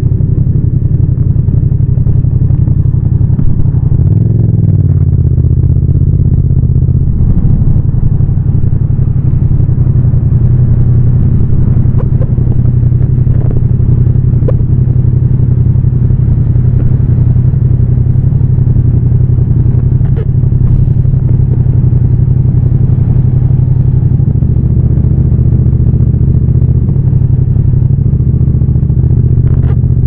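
Yamaha MT-07's parallel-twin engine running under way, heard from the rider's seat with no wind noise. Its note holds mostly steady, with a brief rise and fall in revs about four seconds in and a shift in pitch a few more times later.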